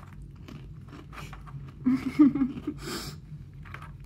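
Crunching and chewing of Cheez-It crackers eaten straight off a plate with no hands, in short irregular crunches. A brief muffled voice sound comes about two seconds in.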